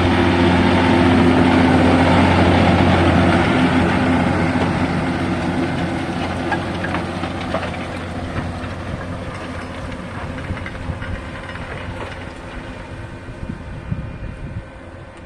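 John Deere 6150R tractor's six-cylinder diesel engine working under load as it pulls a reversible plough through dry, cloddy stubble. It is loud at first, then fades steadily as the tractor moves away, with scattered clicks and knocks as it fades.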